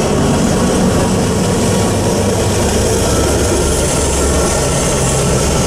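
Norfolk Southern freight train rolling through a grade crossing: a steady rumble and clatter of wheels on rail, with a deeper rumble swelling about midway as a locomotive goes by.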